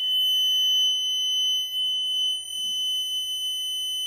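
Electronic buzzer of a homemade break-glass fire alarm button sounding one steady, high-pitched continuous tone: the alarm in its triggered emergency state.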